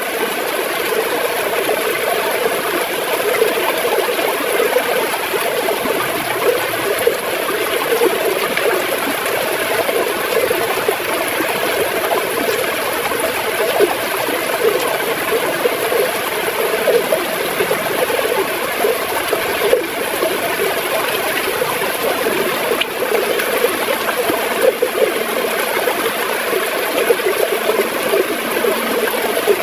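River water gurgling and flowing steadily, a continuous burbling rush with no breaks.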